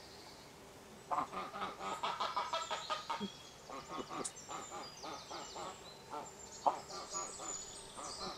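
Domestic geese calling in short, repeated honks, starting about a second in and going on in quick runs.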